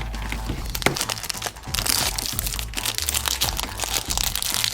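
Plastic toy blind-packaging crinkling and crackling as it is opened by hand, over background music with a steady bass line.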